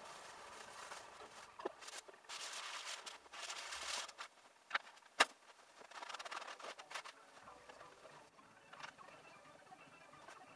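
Hands and a cloth rubbing and dabbing paint on a stretched canvas: faint scuffing in several bursts, with two sharp taps about halfway through.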